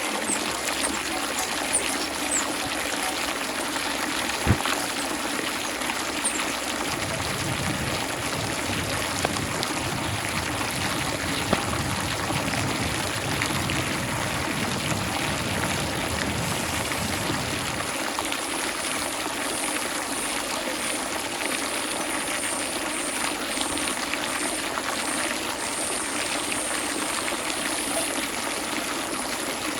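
Water running and trickling steadily, with one sharp tap about four and a half seconds in.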